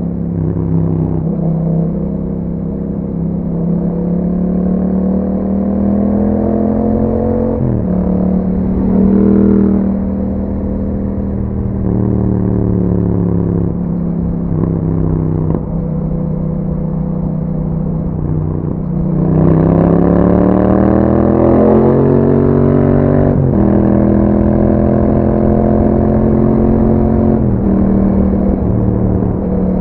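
Yamaha MT-07's 689 cc parallel-twin engine running through an aftermarket Akrapovic exhaust while riding. The revs rise and drop back in steps as it shifts gear. It gets louder with a hard acceleration about two-thirds of the way through, then settles to steady cruising.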